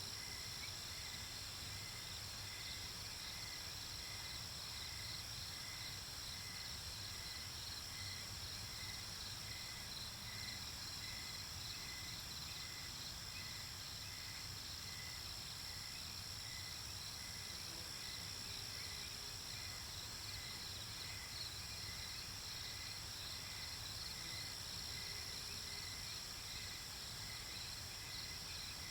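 Night insect chorus of crickets: a steady high trill with a slower, regular chirp repeating about one and a half times a second.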